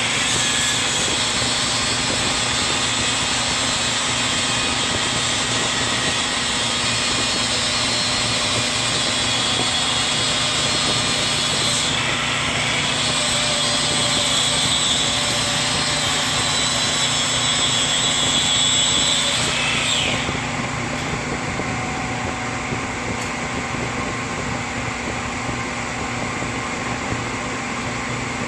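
Milwaukee 18-volt cordless 4-1/2" angle grinder running with a high whine. Its pitch dips briefly about twelve seconds in, then it is switched off about twenty seconds in, leaving a steady low hum.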